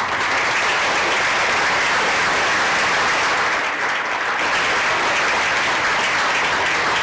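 An audience applauding, a steady spell of clapping.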